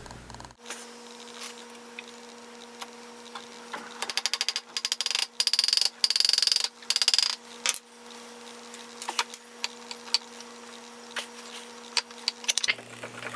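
Small hammer tapping metal on the gear shaft in a Hendey lathe's quick-change gearbox, in several quick runs of light, ringing metal-on-metal taps starting about four seconds in, to drive the shaft and gears loose. A faint steady hum runs underneath.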